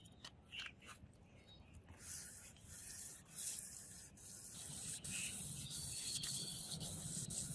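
Sanding strokes on a forged steel katana blade, rubbing back and forth in a steady rhythm of a little over two strokes a second, starting about two seconds in.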